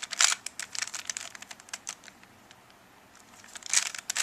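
A Rubik's cube being turned quickly by hand: rapid plastic clicking of the layers as an F2L pair is set up and inserted. There is a flurry of turns for about the first second, a quiet pause, and another flurry near the end.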